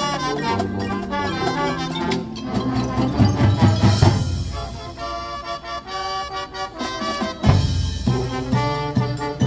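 High school marching band playing its field show: brass chords over a front ensemble of marimbas and drums. The low end swells louder about three seconds in, and a loud ensemble hit lands about seven and a half seconds in.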